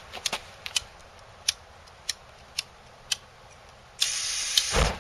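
Aerosol can of gum-remover freeze spray. A few light clicks from handling, then about four seconds in a hissing burst of spray lasting under a second, ending in a dull low thump.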